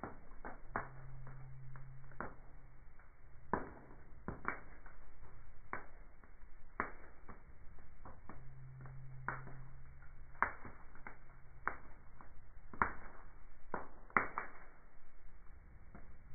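Wood fire burning in a fireplace, crackling with irregular sharp pops, a couple of seconds apart or closer, over a soft hiss.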